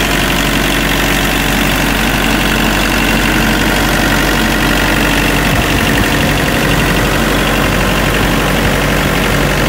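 Thermo King SB reefer unit running steadily: its diesel engine, fans and freshly replaced drive belts turning, a loud even drone with a low hum and a fan rush over it.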